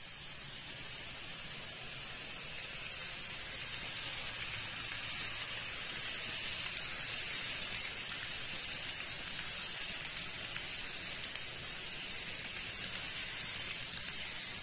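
Model train running on the layout's track: a steady high whir with many fine clicks from the wheels on the rails, building over the first few seconds and then holding.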